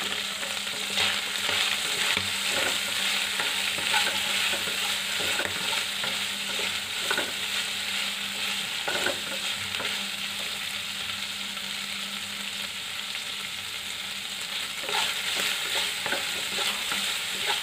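Chicken liver pieces sizzling as they fry in oil in a kadhai, after their own water has cooked off. A wooden spatula scrapes and stirs them across the pan every few seconds.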